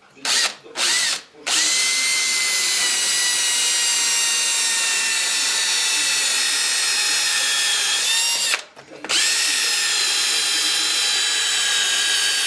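Electric drill boring a small hole into a stove brick with a thin bit: two short trigger pulls, then a long steady run with a high motor whine that sinks slightly in pitch. It stops briefly about two-thirds of the way through, then runs steadily again.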